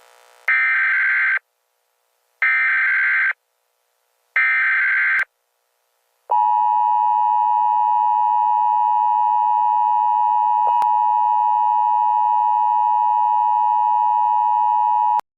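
Emergency Alert System tones: three short bursts of SAME header data, each about a second long and two seconds apart, then the steady two-tone attention signal held for about nine seconds before it cuts off. They mark the start of an emergency alert broadcast.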